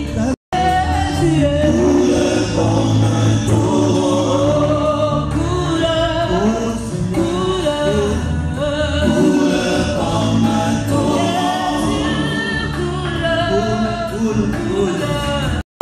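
A congregation singing a gospel song together. The sound cuts out briefly twice, about half a second in and near the end.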